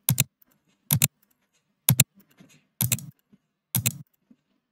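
Mouse-click sounds played by the Clicket click-sound app, five clicks about a second apart. The later clicks are longer and fuller than the first ones.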